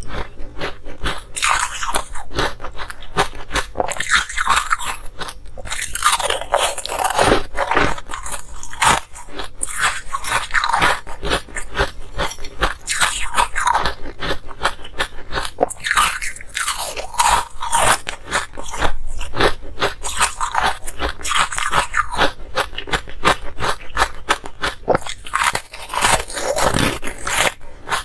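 Close-miked crunching and chewing of hard coloured ice: a dense run of crisp cracks and crunches, with brief pauses between bites.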